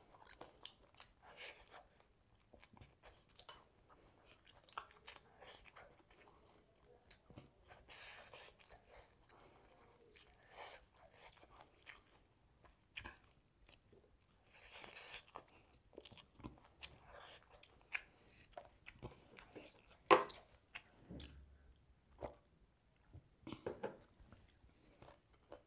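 Close-up chewing and biting of a grilled chicken meal: soft wet mouth sounds with irregular crunches and clicks. One sharp click about twenty seconds in is the loudest.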